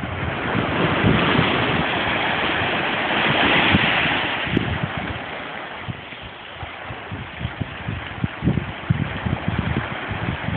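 Ocean waves washing onto a rocky, sandy shore: the rush of surf swells to a peak a few seconds in, then draws back and quiets. Wind buffets the microphone in low gusty thumps, more of them near the end.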